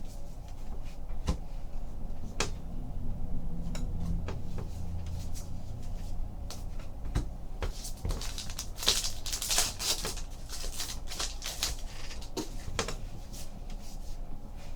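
Baseball card packs and cards being handled on a table: scattered light clicks and taps, with a denser rustle of pack wrappers and cards about nine seconds in.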